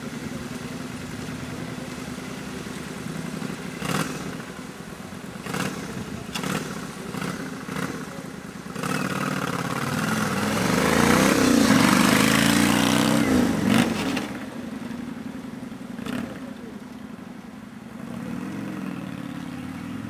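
Yamaha XV400 Virago's V-twin engine idling steadily, with a few sharp clicks. Then the bike pulls away with the engine revving up loudly, and the sound fades as it rides off.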